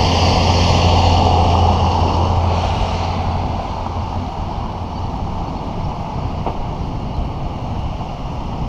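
A truck towing a trailer drives past, its engine drone fading away over about the first three seconds. Wind rushes over the microphone of the moving bicycle throughout.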